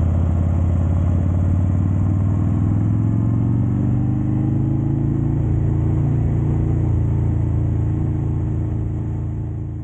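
Harley-Davidson Dyna's V-twin engine running, its pitch rising a little a few seconds in, then fading out at the end.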